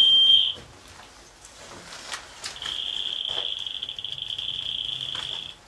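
Electronic buzzer or alarm tone: a steady high beep that cuts off about half a second in, then a second, slightly buzzier high tone held for about three seconds from about two and a half seconds in.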